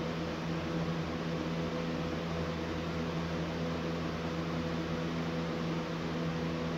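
A steady motor hum with a few low held tones over an even hiss, unchanging throughout.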